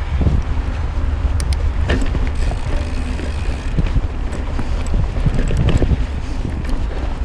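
Mountain bike riding fast down a dirt forest trail: wind buffeting the microphone over tyre rumble, with scattered clicks and rattles from the bike over bumps.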